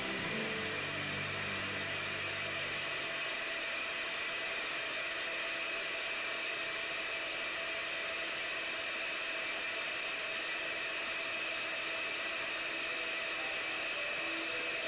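Electric hand mixer running at high speed, its beaters whipping warmed whole eggs and sugar in a glass bowl: a steady whir with a high whine. This is the first stage of beating the eggs for a sponge cake, while the foam is still thin and the beater tips barely reach it.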